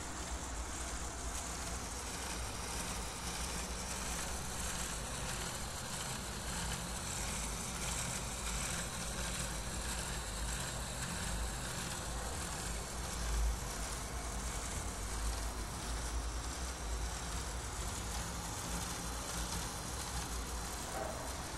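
Power Functions electric motors and plastic gearing of a motorized Lego Technic 8265 front loader running steadily, a continuous whirring hiss over a low rumble from the handheld camera.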